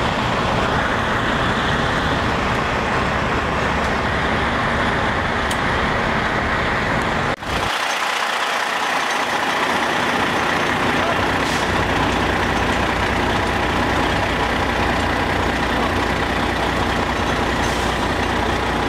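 Fire apparatus engines running, a steady loud mechanical din. It breaks off for a moment about seven seconds in and the low rumble comes back a few seconds later.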